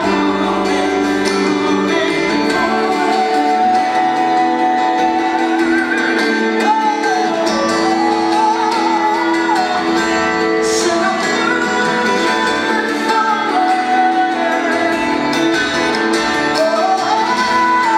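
Music with singing: long, wavering held notes over a steady sustained accompaniment.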